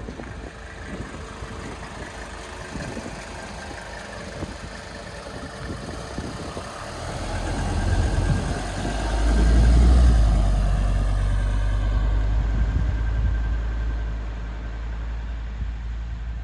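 1979 Mercedes-Benz 300SD's 3.0-litre turbo-diesel inline-five idling, then pulling away and driving past, loudest about ten seconds in. It fades gradually as the car drives off.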